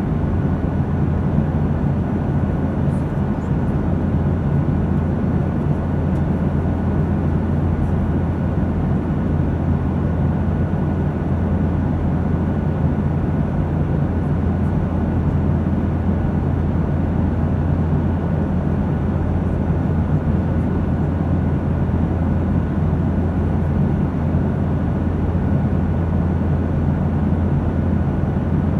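Steady airliner cabin noise: a low, even drone of engines and airflow, with a faint steady whine above it.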